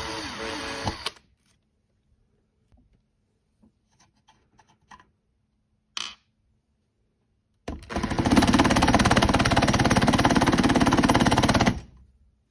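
Cordless drill with a twist bit running down and stopping about a second in, as a stripped screw rides up out of the wood on the bit. After a few light handling clicks, the cordless drill runs again for about four seconds with a screwdriver bit turning a screw, then cuts off suddenly.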